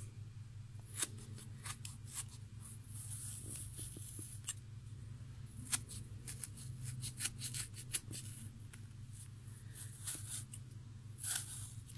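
Scalpel slicing through strands of yarn wound on a plastic pom-pom maker: faint, scattered snicks and ticks, over a steady low hum.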